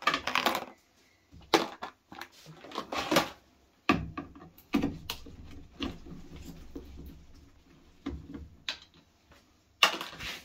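Irregular clatter of small parts and tools being handled, with about ten separate knocks and clicks and some rustling between them, as if pieces are set down or tossed aside.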